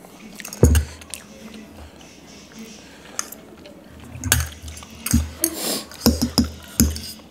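Metal forks and spoons clinking and scraping against ceramic bowls and a plate while people eat noodles. A dull knock on the table about two-thirds of a second in is the loudest sound. The clinks come thicker in the second half.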